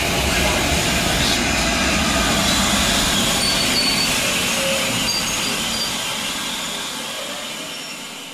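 GWR King class steam locomotive 6023 moving slowly: a steady hiss of steam with a low rumble from the running gear, fading out near the end.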